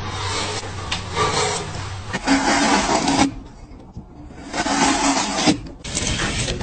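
Sharp blades shaving wood: a carving knife and chisels cutting curled shavings from wooden blocks, a run of rough scraping strokes of about a second each with short pauses between.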